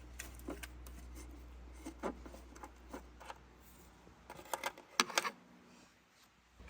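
Scattered light clicks, knocks and rubbing from hands working loose car interior trim and fittings, with a quick run of clicks about three-quarters of the way in. A low background hum stops partway through.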